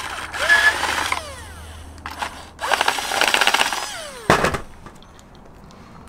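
Power drill with a step bit enlarging a hole for a wiring cable: two bursts of drilling, each winding down with a falling whine, then a sharp knock about four seconds in.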